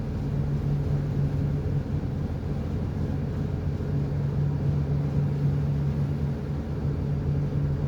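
Tugboat engine running steadily under load, a constant low hum with an even rumble beneath it.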